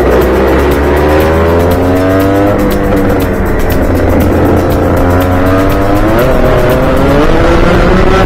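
Rotax 125 cc two-stroke kart engine heard onboard, revs climbing for about two and a half seconds, falling away as the driver lifts for a corner, then climbing again from about five seconds in.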